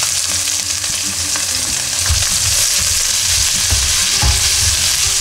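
Chopped onion and ginger sizzling in hot olive oil in a stainless steel pot: a steady frying hiss. A spatula stirs through it, with a few dull knocks against the pot.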